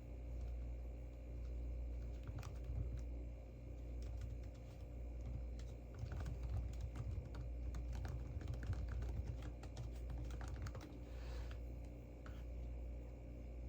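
Typing on a computer keyboard: a few scattered key clicks at first, then a quick run of keystrokes through the middle, over a steady low hum.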